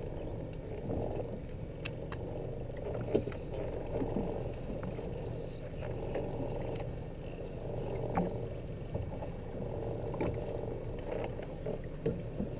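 Steady low rumble of a small fishing boat at sea, with a few sharp clicks scattered through it.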